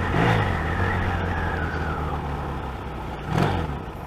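Motorcycle engine running on the move, a steady low note under a rush of road and wind noise that slowly eases off. About three and a half seconds in there is a brief louder swell with a bending pitch.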